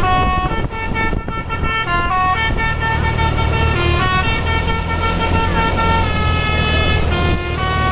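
A bus's basuri 'telolet' musical horn playing a melody of held notes, stepping from pitch to pitch every fraction of a second to about a second, over the bus's engine running.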